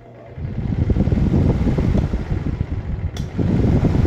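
3D Turbo Power electric stand fan running on its newly installed capacitor. Its airflow hits the microphone as a loud, rough low rumble that starts about half a second in. A single sharp click comes a little after three seconds.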